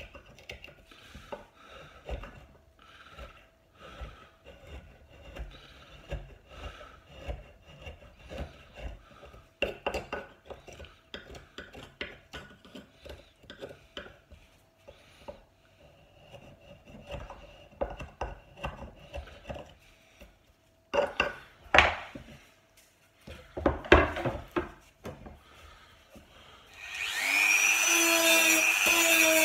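Irregular scraping and rubbing strokes on a wooden tabletop, with light knocks from the tool. Near the end a small high-speed power tool starts up, its pitch rising, and then runs steadily and loudly.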